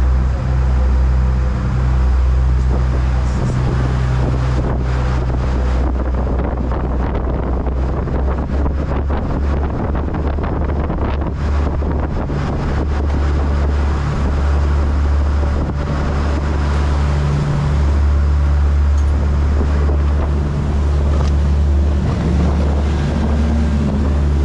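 Dive boat's engines running under way, a steady low drone, with wind rushing over the microphone and the hiss of churning water from the boat's wake.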